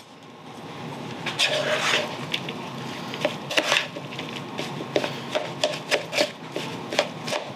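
A large metal spoon stirring shredded chicken filling (chicken, cheddar, cilantro and jalapeño) in a mixing bowl: irregular clinks and scrapes of the spoon against the bowl, about two a second.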